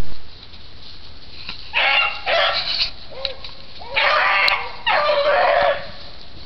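Beagle baying: four drawn-out, high-pitched bays in two pairs, a strained cry that the owner says the dog gives when hot on a rabbit's trail.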